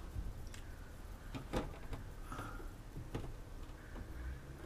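Faint, scattered light clicks and handling noises as hands work a cord and fitting at a van's ceiling fan, about four small knocks spread over a few seconds.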